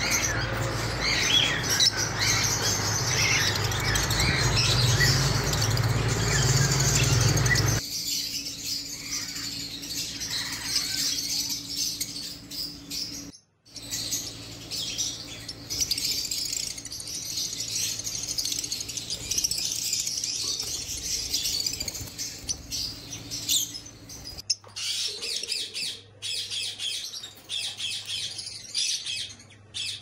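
Caged lovebirds chirping and squawking in high, rapid twitters. A steady low hum runs under the first eight seconds, and the sound cuts off abruptly several times.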